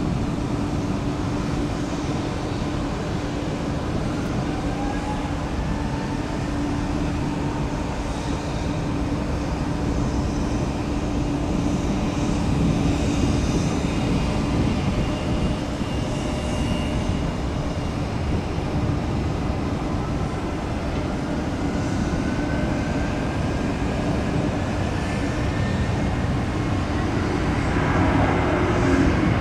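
Airbus A350-900's Rolls-Royce Trent XWB turbofans running at high power on the takeoff roll: a steady jet rumble and roar, with a whine that climbs slowly in pitch as the engines spool up.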